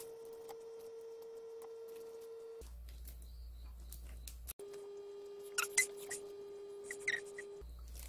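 Steamed prawn shells being peeled off by hand, with a few soft cracks and crackles about two thirds of the way in, over a steady faint tone that drops out for a couple of seconds in the middle.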